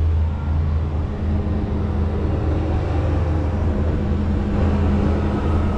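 Steady low hum inside a Skyliner gondola cabin riding along its cable, with fainter steady tones above it.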